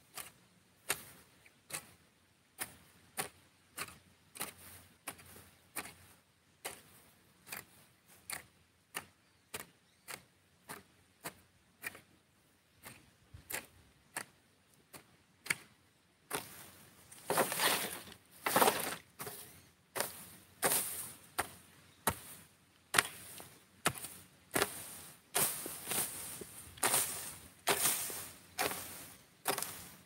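Regular strikes of a long-handled hoe into dry grass and soil, about one every three-quarters of a second, becoming louder and fuller about halfway through.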